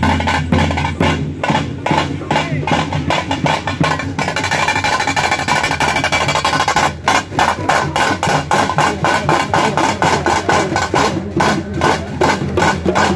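Loud music driven by fast, steady drumming, several strokes a second, with a pitched instrument sounding underneath.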